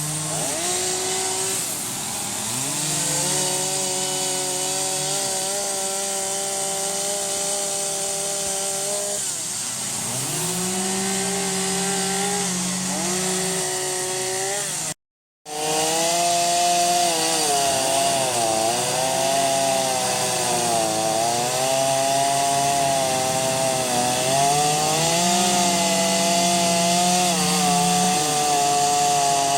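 Chainsaw cutting into redwood, its engine note dropping as the chain bites into the wood and rising again as it eases off, over and over. The sound breaks off abruptly for a moment about halfway through, then carries on a little louder.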